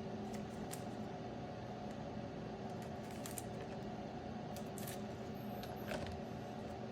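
Trading cards in plastic holders being handled, with a few faint rustles and clicks over a steady low room hum.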